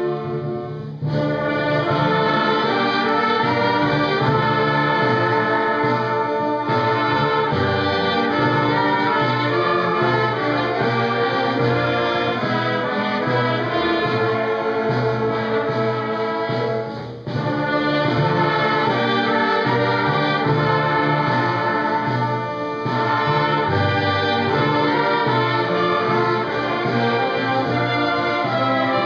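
Concert wind band playing, brass and woodwinds together. The full band comes in about a second in, with a short break about halfway through.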